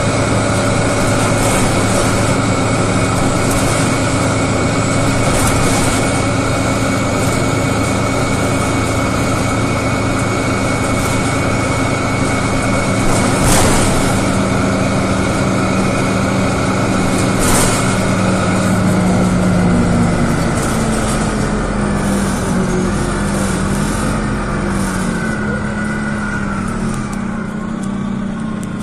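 Detroit Diesel Series 50G natural-gas engine and ZF Ecomat-2 HP-592C transmission of an Orion VII CNG transit bus running under way: a steady engine drone with a high, steady whine. Two sharp knocks come in the middle, and in the last third the engine pitch steps up and down.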